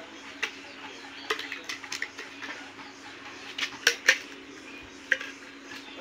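Metal tools and loose engine parts clicking and clinking against each other on a partly dismantled Pulsar NS200 motorcycle engine, in scattered light taps with two sharper clinks close together about four seconds in.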